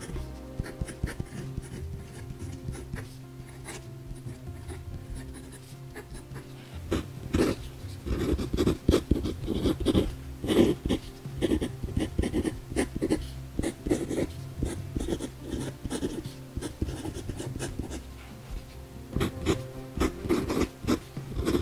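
Fine-nib Parker 51 Premium fountain pen scratching over Blackwing notepad paper in short strokes as words are handwritten. The strokes grow busier and louder about a third of the way in, with a short lull near the end.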